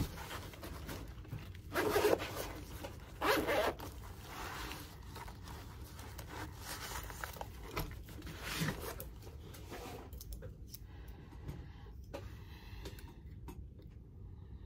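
A zip pulled open in two quick rasping strokes, about two and three and a half seconds in, followed by faint clicks and handling noises.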